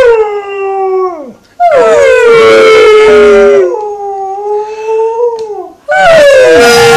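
Alaskan malamute howling in long, drawn-out howls. The first slides down in pitch and trails off about a second and a half in, the next is held steady, and another begins near the end.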